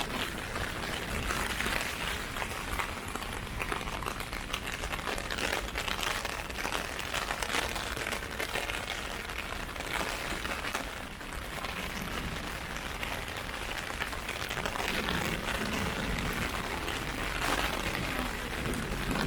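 Heavy rain falling steadily, a dense spatter of drops hitting an umbrella overhead.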